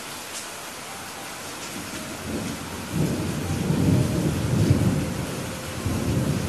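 Steady rain hiss with a low rolling rumble of thunder that builds about two seconds in, is loudest in the middle, and swells again near the end.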